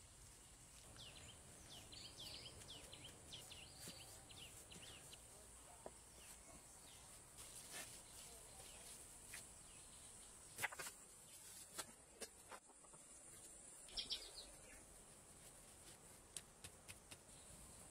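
Faint outdoor forest ambience: a steady high insect hiss, with birds chirping over the first few seconds and once more near the end. Scattered light clicks and knocks, loudest about ten and fourteen seconds in, come from the hand masonry work of setting blocks and stones in mortar.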